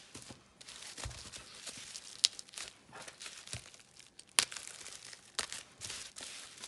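Plastic bubble wrap crinkling and rustling as it is worked at and pulled open by hand, with a few sharp snaps, the loudest about two seconds in and again just past four seconds.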